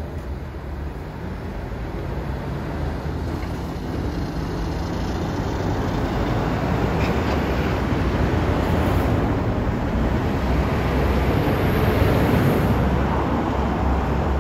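Diesel engine and tyres of a heavy-haul tractor-trailer moving on the road: a steady low rumble that grows louder and is loudest near the end.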